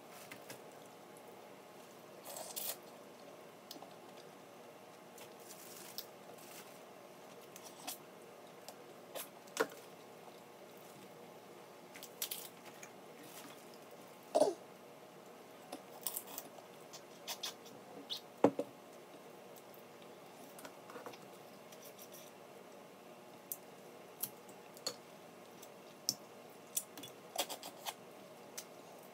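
Snow crab shells being cracked and picked apart by hand in a plastic seafood-boil bag: scattered crackles, snaps and squishes, with two louder sharp cracks about 14 and 18 seconds in.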